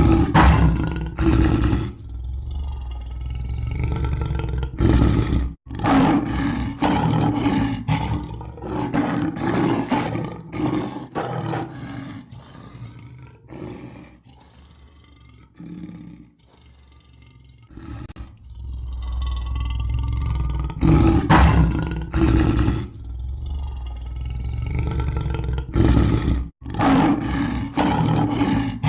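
Lion roaring again and again, a series of deep roars and grunts, with a quieter lull midway before the roaring picks up again.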